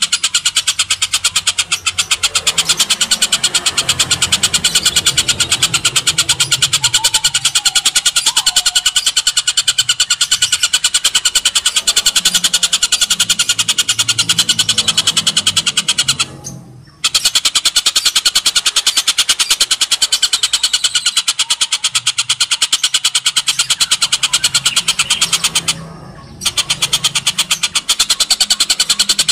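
Oriental dollarbird giving a loud, rapid, harsh rasping chatter that keeps going, with two brief breaks, one about halfway through and one near the end.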